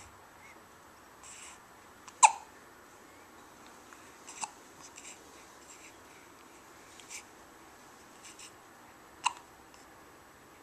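Young child hiccupping: two sharp hiccups about seven seconds apart, with a few fainter small sounds between.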